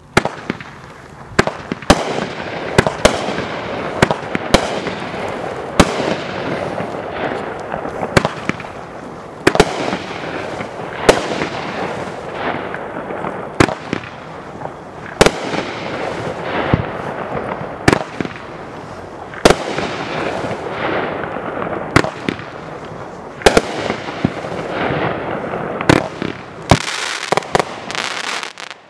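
Multi-shot consumer fireworks cake (VG2008C Mixed Shape Cake) firing its shots in sequence: sharp reports about one a second or so, with a continuous hiss and crackle between them, and a quick run of several reports near the end.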